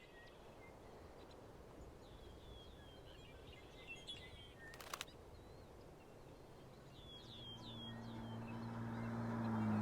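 Quiet outdoor ambience with birds chirping in short, falling chirps and a single sharp click about halfway through. From about seven seconds a low steady hum swells up louder.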